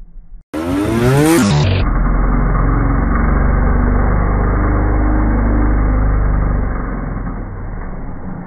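Trials motorcycle engine revving up quickly with a rising pitch, then running loud and steady, easing off near the end.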